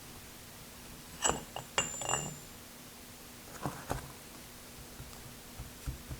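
Metal lathe parts clinking against each other, a few sharp clinks with a brief high ring about a second in, then softer knocks and light taps.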